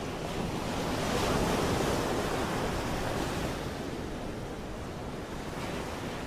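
Sea surf washing onto a beach, with wind. It is a steady rush that swells about a second in and then slowly eases.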